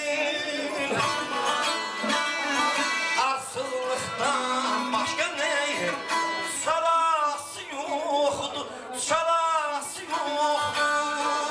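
Live ashug music: a long-necked saz strummed and plucked, with a small reedy wind instrument playing an ornamented melody alongside and a man's voice singing at times.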